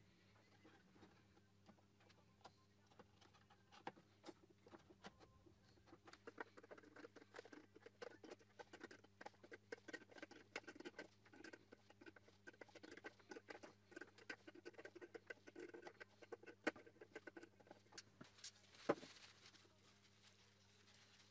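Faint, rapid small clicks and scratches of hands handling plastic headlight parts: a black plastic shroud being fitted over a bi-xenon projector and the projector's retaining nut being worked, with a sharper click near the end.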